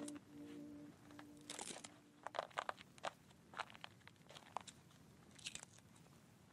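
Background music ending about a second in, then faint, irregular crunches and clicks.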